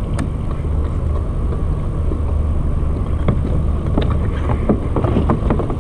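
Steady low engine hum with a deep, even drone, with a run of small clicks and knocks about three to five seconds in as a fish is lifted aboard in a landing net.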